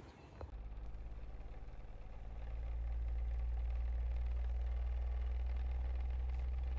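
A steady low hum that comes in about half a second in, grows louder over the next two seconds and then holds.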